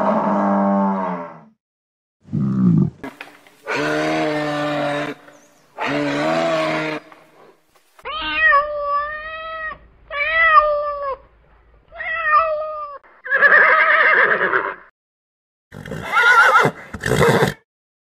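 A run of short, separate animal calls with brief silences between them. A water buffalo's low lowing call ends about a second and a half in. In the middle a domestic cat meows three times, each meow about a second long. The other calls come from different animals.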